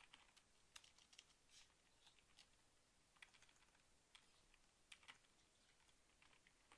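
Faint computer keyboard typing: scattered, irregular key clicks, a few a second, over near silence.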